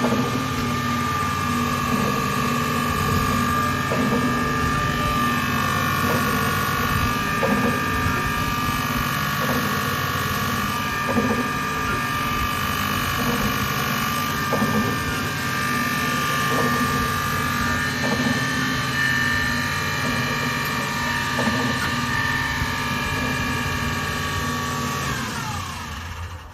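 Socolest S.PT crosscut circular saw running with a steady whine from its 3 kW motor and blade, with short sounds recurring now and then. Near the end the pitch falls as the saw winds down and stops.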